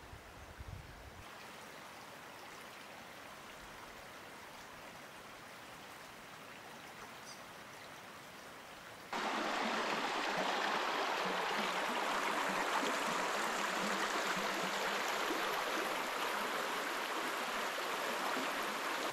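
Shallow forest stream running over stones: a steady rushing of water that comes in suddenly about halfway through, much louder than the faint steady hiss before it.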